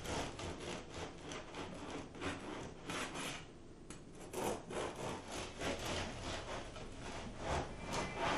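Güde bread knife with a wavy edge of pointed teeth sawing back and forth through the crust of a loaf, a rasping stroke about two to three times a second, with a short lull a little before the middle.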